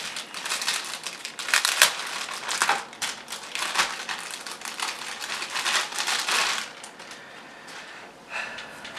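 Plastic bag and bubble-wrap packing being crumpled and pulled apart by hand, a dense, irregular crinkling for about seven seconds, then quieter with one short rustle near the end.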